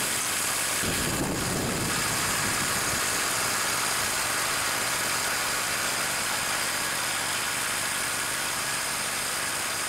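Small petrol engine of a homemade bandsaw mill running steadily at idle.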